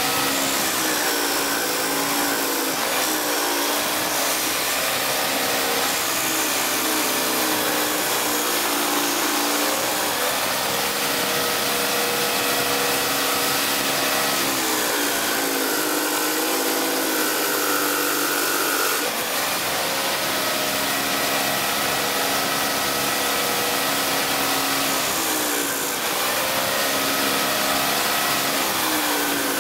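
Electric drill driving a homemade 18 cm disc sander, running steadily while plywood is sanded against the disc. The motor's pitch dips and recovers several times as the wood is pressed on and eased off.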